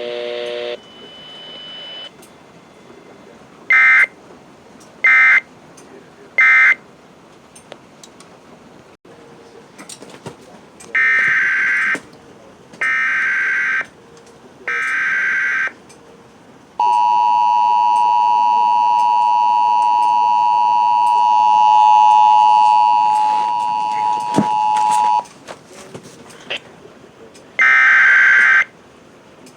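Emergency Alert System tones. First come three short SAME end-of-message data bursts about a second apart. Then come three one-second SAME header data bursts for the next alert, a flash flood warning, followed by a steady two-tone attention signal held about eight seconds. Two more header bursts start near the end.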